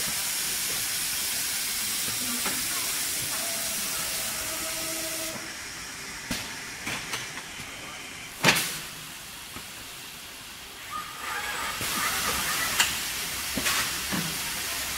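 Robotic body-in-white work cell: a steady air hiss that drops away about a third of the way in and comes back near the end, broken by a few sharp metallic clunks, the loudest just past halfway.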